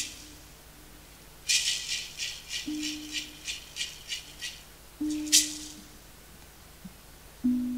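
A percussion rattle shaken in a quick run of about four strokes a second, then one sharp shake, with three low held notes from another instrument.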